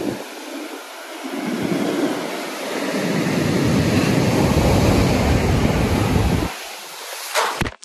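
Rough surf breaking and washing up a sandy beach, a steady rushing wash. Wind buffets the microphone with a low rumble that builds about a second and a half in and drops away near the end.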